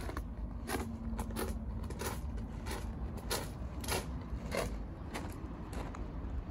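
Footsteps crunching on loose gravel at a steady walking pace, about one step every 0.6 seconds, over a steady low rumble.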